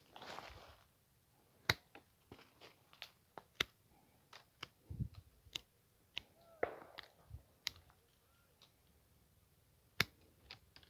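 Hand pruning shears snipping quince branches: a dozen or so sharp snips and clicks at irregular spacing, with brief rustling of branches in between.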